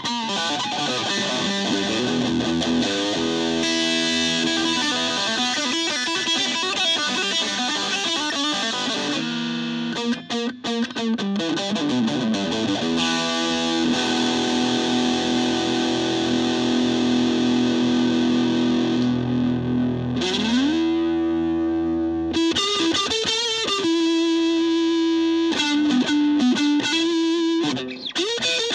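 Electric guitar played through a 15-watt solid-state Fender Frontman PR-241 amp in a sound test: chords and held notes, with a slide up in pitch about two-thirds of the way through. The amp now gives output after repair of its no-output fault.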